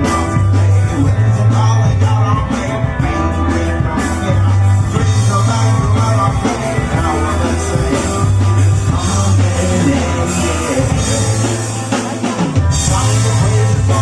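Live rock band playing: drum kit with cymbals, electric guitar and long held bass notes, with a singing voice in the mix.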